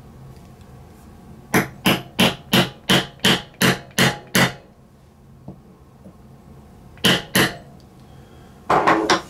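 Light taps seating a ball bearing into the transmission/diff case of a 1/5-scale HPI/Rovan, struck through a tool fitted over the bearing: about nine quick taps, roughly three a second, then two more a couple of seconds later and a short flurry of knocks near the end.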